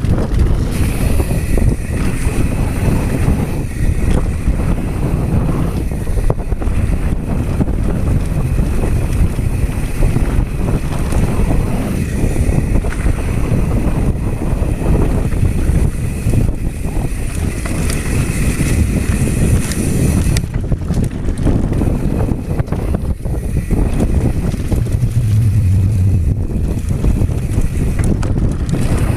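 Wind buffeting an action camera's microphone during a fast mountain-bike descent, mixed with the continuous rumble and rattle of knobby tyres and the bike over a rocky dirt trail.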